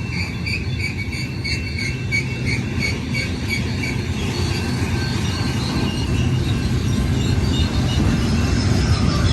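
Freight cars of a downhill mixed freight train rolling past with a steady low rumble that builds slightly. For the first few seconds a high ringing tone pulses about twice a second, then fades out.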